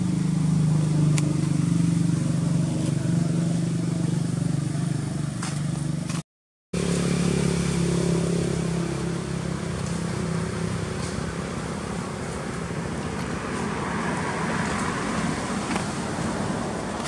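A motor engine running steadily with a low hum, fading about ten seconds in. The sound cuts briefly to silence about six seconds in.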